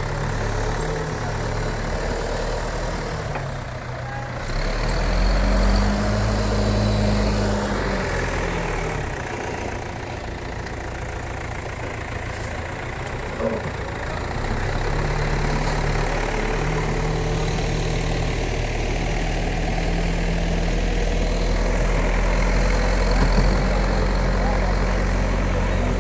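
Heavy earthmoving machine's diesel engine running. It revs up about five seconds in, settles back a few seconds later, and runs steadily through the second half.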